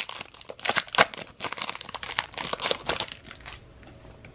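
A 2018 Donruss Optic football card pack's foil wrapper being torn open and crinkled: a quick run of crackling rustles that dies down over the last second.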